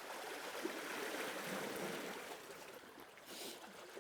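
Sea water washing and lapping as a steady wash of noise that fades over the last second or two, with a brief hiss about three and a quarter seconds in.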